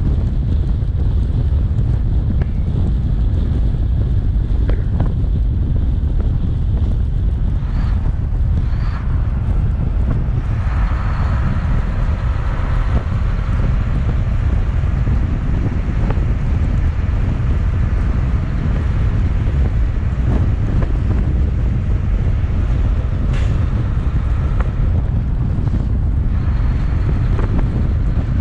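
Steady, loud wind rush on an outside-mounted microphone on a moving Volvo 780 semi truck, over the low rumble of the truck and its tyres on a snowy road.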